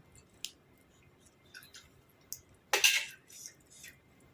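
Eating noises at a table: scattered light clicks of utensils against a dish, and one louder crunch about three seconds in.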